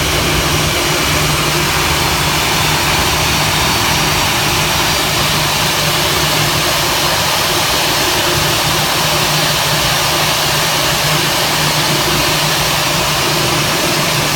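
Airbus A319ceo turbofan jet engines running steadily: a constant low hum under a broad, even rush of hiss, with no rise or fall in pitch.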